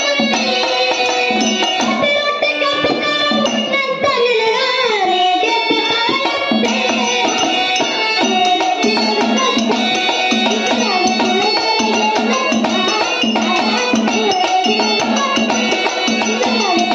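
Children singing through a microphone and PA, accompanied by a two-headed hand drum keeping a steady beat.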